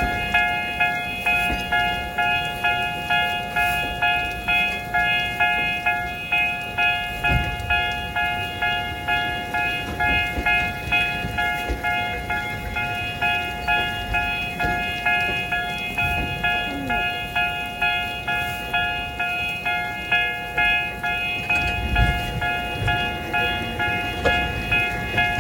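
Japanese level crossing warning bell ringing in a steady, evenly repeating electronic ding; this is the crossing's newly changed warning tone. A low rumble runs underneath, typical of a train passing.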